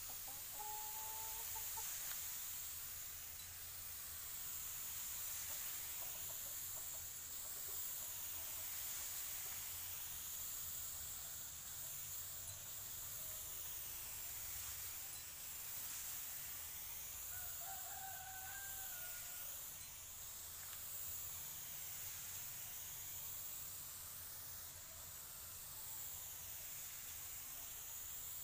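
Gravity-feed compressed-air spray gun hissing steadily as it sprays finish across a tabletop, its tone shifting as the gun sweeps back and forth. A chicken clucks briefly near the start and again about two-thirds through.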